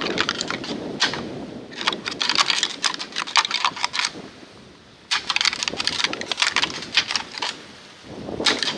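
Rattling antlers, a pair of deer antlers clashed and ground together in bursts of rapid clicking and clattering, four runs with short pauses between. This imitates two bucks sparring during the rut, to draw in a buck.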